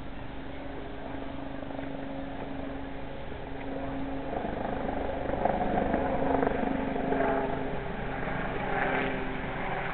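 A motor vehicle's engine running with a steady hum, growing louder over the second half amid street noise.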